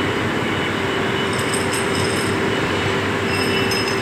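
Steady running noise of machinery with a constant hum, unchanging throughout, with a few faint high ticks.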